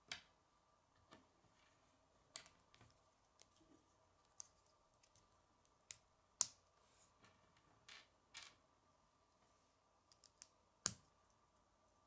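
Plastic Lego pieces clicking as they are handled and snapped together by hand: a dozen or so short, sharp clicks at irregular intervals, the loudest a little past halfway and near the end.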